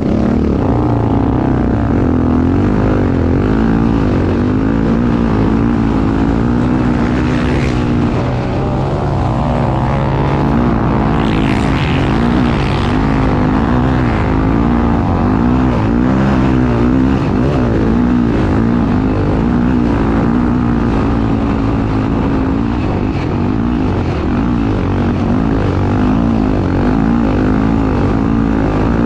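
Honda XR250 Tornado's single-cylinder four-stroke engine running hard, its pitch rising and falling over and over as it revs up and eases off. A rushing noise joins it for a few seconds around the middle.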